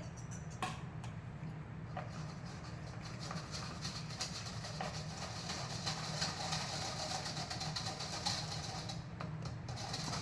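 A hand flour sifter being worked, giving a steady rattling, scraping sound with fine rapid clicks. It grows stronger through the middle and eases off near the end.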